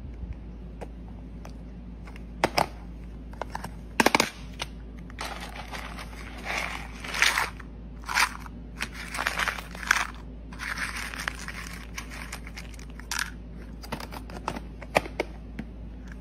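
Dry pet kibble rattling and scraping against plastic as it is scooped with a clear plastic cup from a plastic tub, in scattered bursts with sharp clicks, over a steady low hum.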